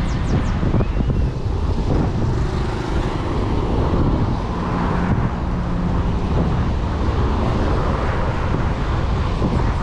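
Road traffic passing steadily, with wind rumbling on the microphone.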